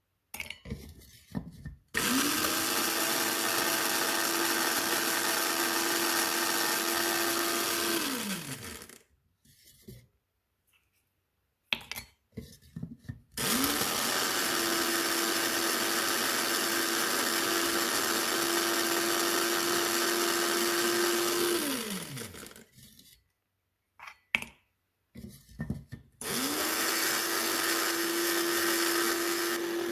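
Electric blade coffee grinder grinding eggshells to a fine powder, run three times: each run spins up with a rising whine, holds a steady hum and winds down when released; the last run is still going at the end. Short knocks and clicks of handling come between the runs.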